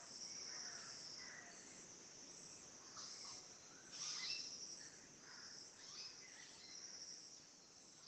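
Faint, high-pitched birdsong: scattered thin chirps and twitters over a steady high hiss, with a brief louder flurry about four seconds in.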